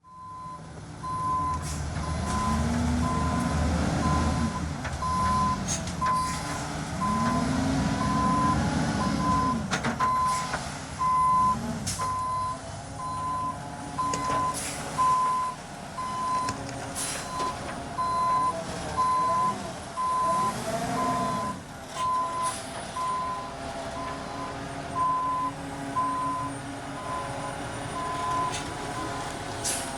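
Concrete mixer truck backing up: its reversing alarm beeps steadily at one pitch while the diesel engine revs up and back down several times, with a few sharp knocks and clanks along the way.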